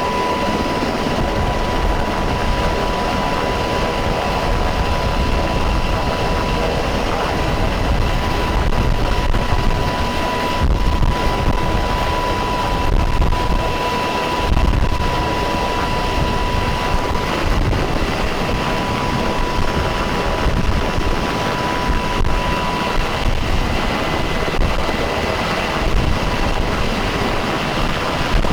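Helicopter running close by at a sling-load pickup: a steady rumble of rotor and engines with a high steady whine over it, and rotor wash buffeting the microphone.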